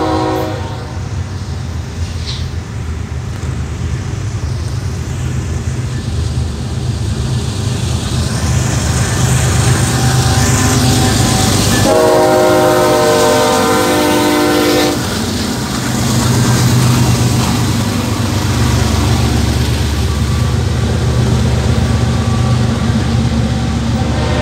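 BNSF diesel freight locomotive passing close by, its multi-chime horn ending just after the start and sounding again for about three seconds as the locomotive goes past midway. The diesel engine and the container cars behind it keep up a steady low rumble that grows louder as the cars roll by.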